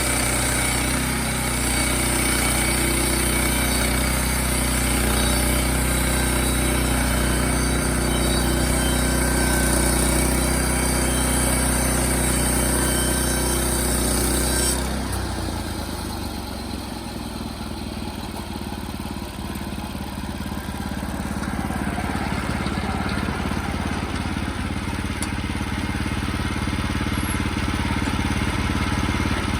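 Sawmill engine running steadily under load while the mill cuts lumber, with a high whine over it. About halfway through the whine cuts off suddenly and the engine runs on a little quieter.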